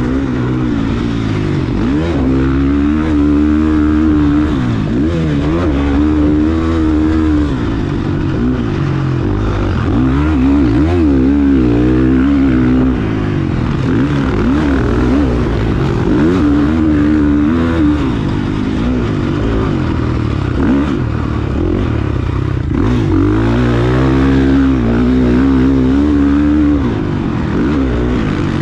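KTM motocross bike engine revving hard and easing off over and over as it is ridden around a dirt track, heard close up from a camera on the bike. The pitch climbs and drops many times, with no let-up in loudness.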